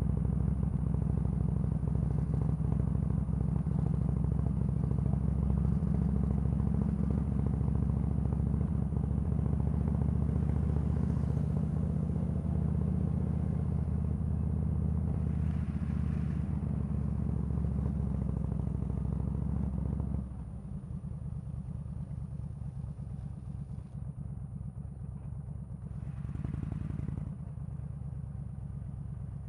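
Yamaha V-Star 1300's V-twin engine running at low town speed with a steady low rumble. About twenty seconds in it drops to a quieter run, with a brief swell a few seconds later.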